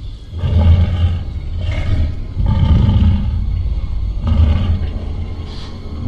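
A cave creature's growls from a horror-film soundtrack: a run of deep, rough growls, one about every second.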